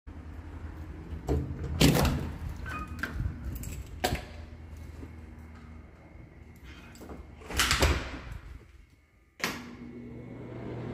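Apartment entry door being unlocked and opened: a series of clicks and knocks from the lock and door, loudest about two seconds in, with further knocks around four and eight seconds.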